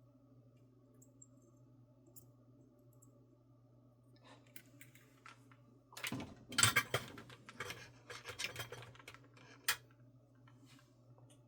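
Small metal tools and parts being handled on a workbench: a run of clinks, clicks and scrapes, busiest in the middle of the stretch and ending with one sharp clink, over a faint steady hum.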